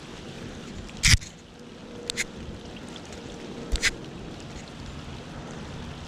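Steady rain falling on a pond's surface. Over it come a few sharp knocks and clicks as a wet rope is hauled in and coiled by hand: one about a second in, then two quick pairs around two and four seconds.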